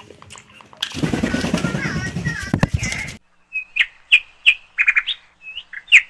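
Alexandrine parakeet giving a quick series of short, sharp chirps in the second half. Before that comes a couple of seconds of dense rustling noise.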